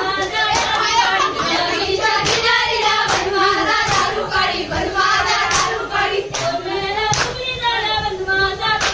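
A group of women singing a Konkani jakhadi dance song together, with sharp hand claps keeping an even beat a little more than once a second.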